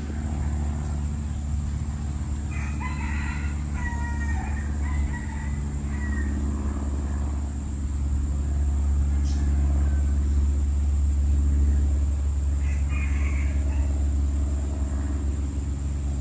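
A rooster crowing in the distance, one long crow about three seconds in and a shorter call near the end, over a steady low rumble and a thin steady high tone.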